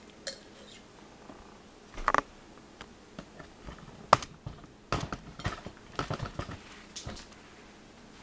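Metal fork clicking and scraping against a plate of food in irregular taps, with a short cluster about two seconds in, a sharp clink about four seconds in, and a quicker run of small clicks a little later.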